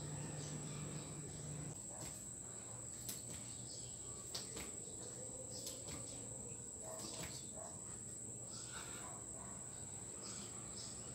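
Insects trilling steadily at one high pitch, with a few faint brief clicks; a low hum stops about two seconds in.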